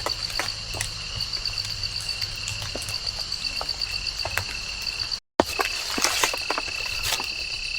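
Insects trilling steadily, a fast pulsing high trill over a second steady high tone, with scattered light taps and drips throughout. The sound drops out for a moment about five seconds in.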